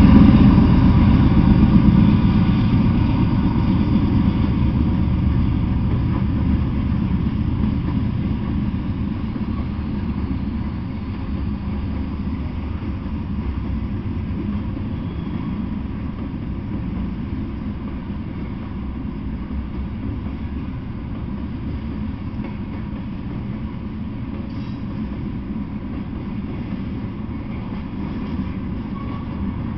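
Norfolk Southern freight train passing: the rumble of its diesel locomotives is loudest at the start and eases over the first fifteen seconds or so into the steady lower rumble of covered hopper cars rolling by.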